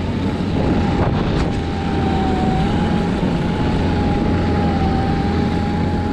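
Electric snowbike with a snow track kit riding at a steady speed: the electric motor gives a thin, steady whine, slightly wavering in pitch, over continuous rumbling noise.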